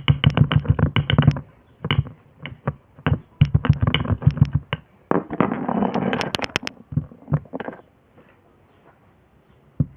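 Kinetic sand being worked by hand: quick runs of soft taps and pats, then a few seconds in a denser grainy crunching stretch ending in several sharp clicks.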